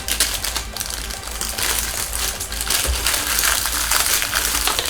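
Toy packaging crinkling and rustling in quick irregular bursts as small boxes and wrappers are torn open by hand.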